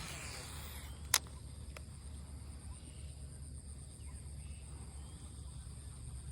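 A short swish, then one sharp click about a second in, over a steady low rumble and a faint steady high whine.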